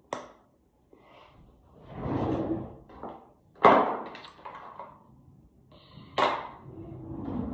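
Three sharp knocks or thuds, one right at the start, one a little past halfway and one about six seconds in, with rustling or scraping between them, as of things being handled and set down in a small room.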